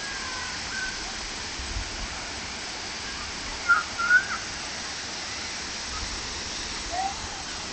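Steady rushing of a waterfall, with a few short, high whistled notes over it: two louder ones a little before halfway and a brief one near the end.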